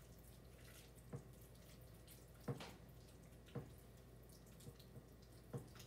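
Utensil stirring partly melted chocolate chips and butter in a mixing bowl, quiet apart from a few faint clicks as it knocks against the bowl.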